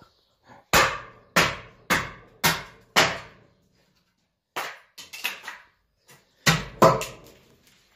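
About ten sharp knocks, each with a short ringing tail: five evenly spaced blows about half a second apart, then a pause and a quicker, uneven cluster. They sound like blows struck on the stacked wooden planks.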